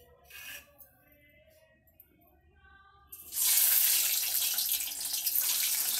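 Faint background music, then a little past halfway a whole boiled egg goes into hot oil in a steel kadai and a loud, steady sizzling and spattering starts suddenly.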